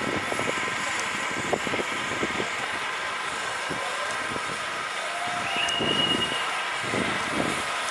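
Steady mechanical whirring hum with faint distant voices underneath, and one short high tone about five and a half seconds in.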